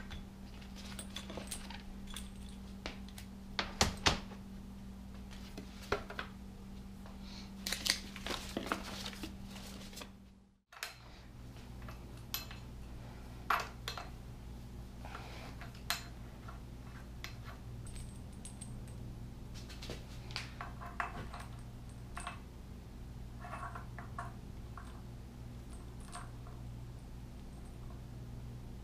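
Metal engine parts and hand tools clinking and clicking irregularly as a timing chain and gear set is unpacked and handled, over a steady low hum.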